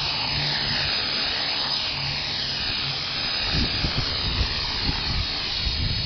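Blade CP Pro electric RC helicopter flying close by: a whine from its motor and rotor blades that rises and falls in pitch. Wind gusts buffet the microphone from about halfway through.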